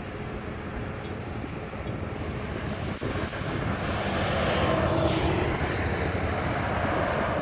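A vehicle passing by: a steady rumble that swells about four seconds in, peaks, then fades a little.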